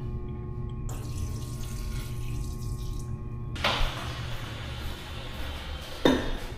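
Urinal flushometer valve flushing: water rushing and hissing through the valve into the bowl, growing louder about halfway through. A sharp knock near the end.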